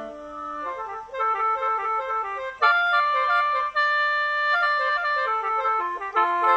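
Khaen, the Lao bamboo free-reed mouth organ, playing: a held chord of several tones under a quick, repeated melody line, growing louder about two and a half seconds in.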